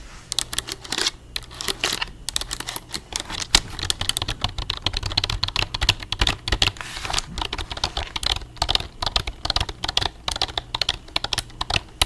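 Rapid typing on a computer keyboard: a dense, uneven stream of key clicks, several a second.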